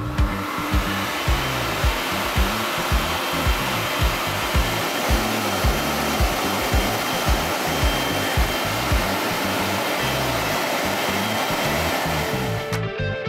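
Canister-style pet grooming blower dryer switched on, blowing a steady, loud rush of air through its hose onto a wet dog's coat, then cutting off suddenly near the end. Background music with a steady beat plays underneath.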